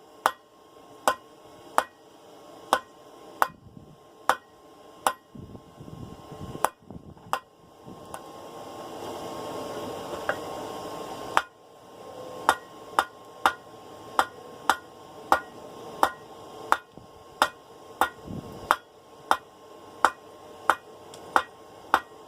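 Blacksmith's hand hammer forging a half-inch round steel bar on an anvil: evenly spaced ringing blows, slow at first. A pause of a few seconds holds a steady rushing noise that swells and then cuts off suddenly, and then the blows come faster, about two a second.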